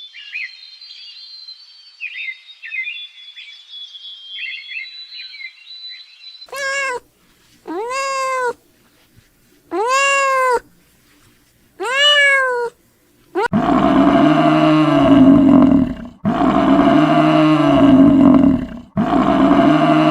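Animal calls. Faint high chirps come first. About six seconds in there are four short calls that rise and fall, roughly every second and a half. From about 13 s there are three long, louder and lower drawn-out calls.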